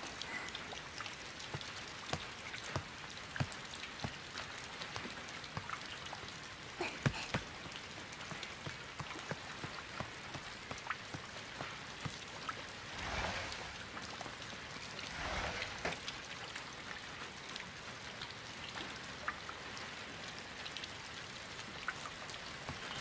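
Steady rain falling, with scattered drips and patter. The rain swells briefly twice past the middle, and there is one sharper knock about seven seconds in.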